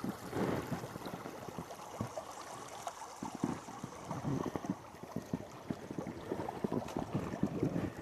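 Footsteps wading through a shallow river: irregular splashes and sloshing over the steady sound of flowing water.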